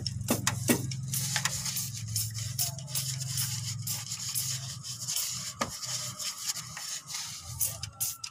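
A hand trigger spray bottle squirting degreaser onto the oily timing cover of a Toyota 2C diesel engine, with rubbing and scrubbing on the greasy metal: a run of short hissy strokes a few per second.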